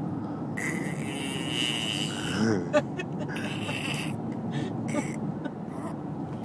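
A person making funny mouth noises: long hissing breaths, a short wavering voiced squeak and a sharp click, over a steady low rumble.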